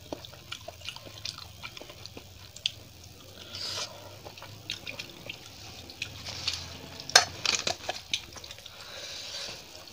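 Close-miked wet eating sounds: chewing and smacking of rice and curry, with fingers squishing and mixing rice on a steel plate, heard as many small wet clicks. A sharper click about seven seconds in is the loudest sound.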